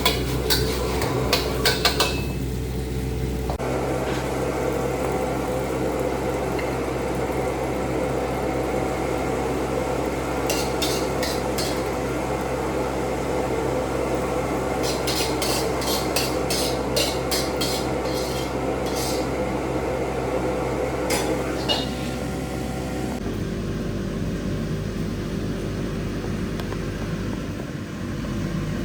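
A metal spatula clanking and scraping against a wok in clusters of quick strikes while flat noodles are stir-fried, over a steady hum.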